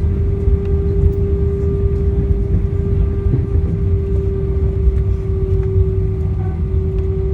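Cabin noise inside an Airbus A319 on the ground after landing: a steady low rumble with an even hum running through it.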